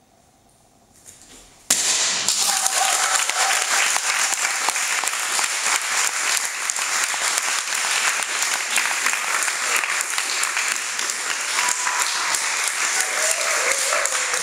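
A wooden board snaps under a taekwondo front kick (ap chagi) about a second and a half in, followed at once by steady applause and clapping that lasts to the end.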